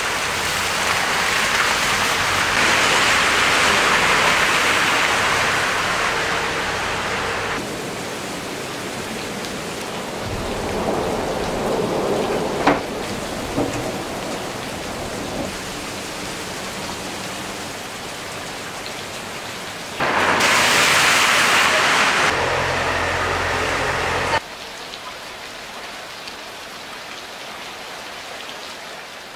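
Hailstorm: a steady hiss of hail and rain falling on streets, roofs and parked cars, cut together from several takes so the level jumps abruptly, loudest about 20 seconds in. A single sharp knock about 12 seconds in.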